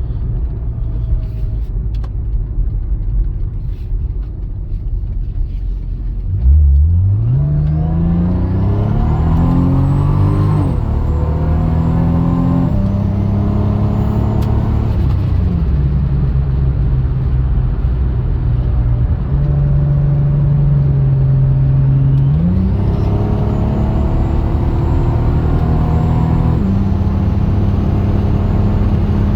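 Turbocharged Lexus IS300 inline-six cruising, then accelerating hard twice, about six seconds in and again around twenty-two seconds in. The engine note climbs through the gears with upshifts, and a high turbo spool whine rises over each pull. With the wastegate dump recirculated into the downpipe there is no wastegate roar, only turbo spool and the exhaust note through the muffler.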